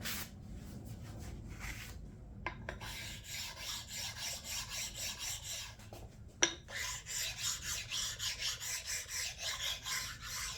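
Flat stone rubbed back and forth over a machined cast-iron surface in even strokes, about two to three a second, to take off burrs. A single sharp knock about six seconds in.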